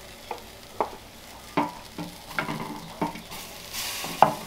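Wooden spoon knocking and scraping against clay as ground longaniza is scraped from a clay bowl into a hot, dry clay cazuela, a knock about every second. From about three seconds in the sausage starts sizzling as it fries in its own fat, with no oil in the pot.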